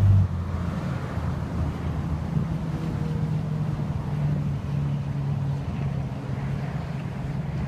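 2006 Yamaha R1's inline-four engine idling steadily. It eases down from a slightly higher, louder note just after the start.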